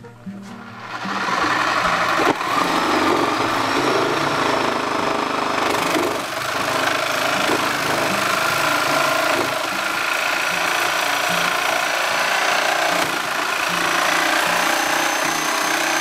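Electric saw starting up about a second in and running steadily as it cuts through a car tire's rubber at the rim of a steel wheel, with background music underneath.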